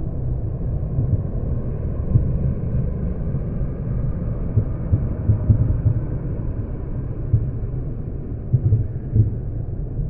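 Deep rumble of road traffic, pitched far down and stretched out by slow-motion recording, with a few brief thumps in the second half.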